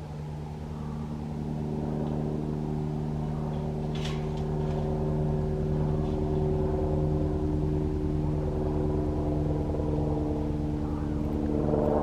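Airbus Helicopters AS350B3 Ecureuil helicopter flying low nearby: the fast beat of the main rotor with a steady engine drone. It grows louder over the first few seconds, then holds steady.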